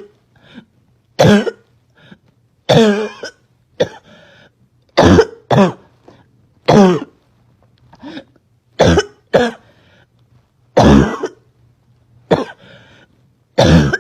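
A girl's barking cough in a fit she can't stop: about a dozen harsh coughs, singly or in pairs, roughly one every second.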